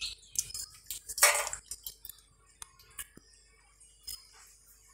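A pestle and dried red chillies on a stone grinding bowl: scattered light clinks and taps, with one louder short scrape about a second in.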